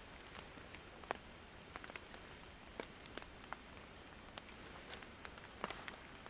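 Light rain: scattered single drops tapping at irregular moments over a faint steady hiss.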